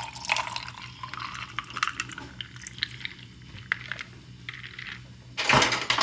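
Ice cubes clinking and tapping against a drinking glass in scattered light clicks. About five seconds in, a sudden louder rush of noise starts.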